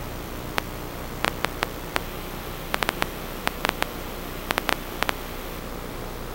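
Steady static hiss with irregular sharp clicks and crackles, several in quick clusters.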